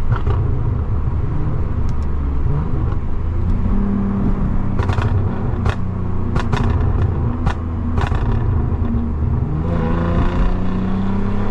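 Lexus IS250's 2.5-litre V6 running on a pops-and-bangs ECU tune, with sharp exhaust pops and crackles firing off throttle, several in a cluster through the middle. Its note climbs near the end as it pulls again.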